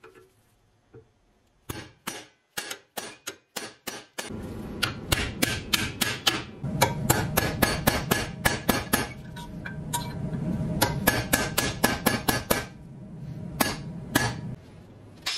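Hammer blows on a steel pin punch, driving a rusted rivet out of an old brick carrier's handle clamped in a vise: a long run of sharp metallic strikes, about two to three a second, that starts a couple of seconds in, stops, and then gives two last blows near the end.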